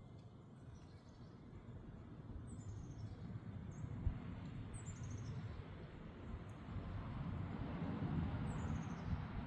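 Wind noise on the microphone, building up, with a bird calling three times in short, high, descending trills. There is a single sharp knock about four seconds in.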